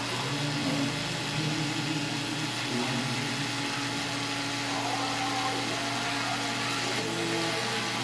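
Small cordless screwdriver motor running steadily, driving a drill bit into a plastic container lid.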